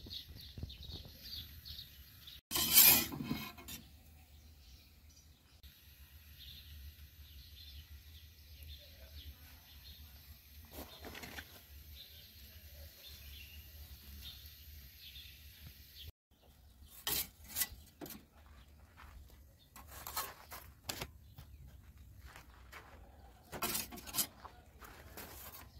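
Small bird chirping over and over in a steady repeated pattern. A brief loud burst of noise about three seconds in, and scattered short knocks and rustles in the second half.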